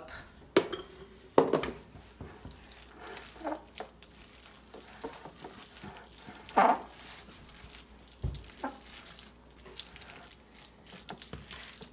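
Wooden spoon stirring cooked macaroni and cheese with egg and flour in a glass bowl: soft wet squishing and scraping with scattered clicks and a few louder knocks of the spoon against the bowl.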